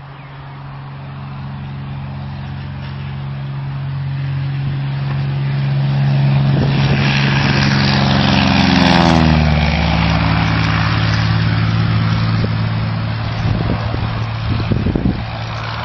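Single-engine crop-duster's piston engine and propeller flying low past: it grows louder as it approaches, passes close about nine seconds in with a drop in pitch, then fades as it flies away. A few short crackles near the end.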